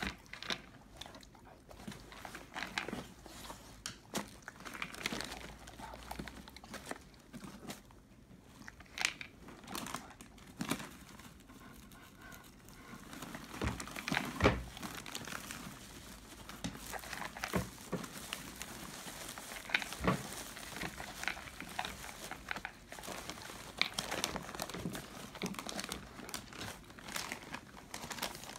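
Dog eating dry kibble from a bowl: irregular crunching and chewing, with one louder crunch about halfway through.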